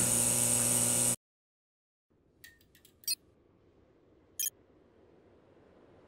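The held final chord of a logo sting rings on and cuts off abruptly about a second in. After a second of silence come a few faint, short metallic clicks over a low hiss, the loudest just after three seconds and another near four and a half.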